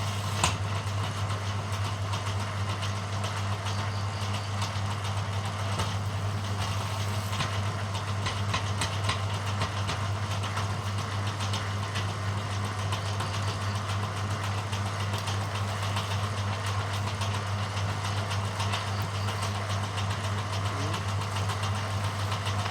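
Bamboo strip-thinning machine running steadily with a constant low hum and scattered light clicks.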